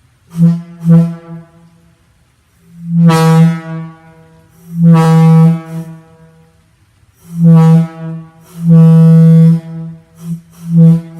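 Leslie Tyfon R-200 locomotive air horn honking loudly on compressed air, one low note sounded in a series of blasts: two short toots, then two long blasts, then a short and a long one, then quick short toots near the end. It is at full volume, with the restricting fitting that had choked its air supply removed.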